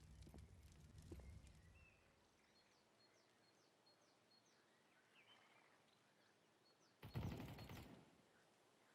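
Faint outdoor-style ambience with a row of short, high chirps, then a brief loud crackling burst about seven seconds in.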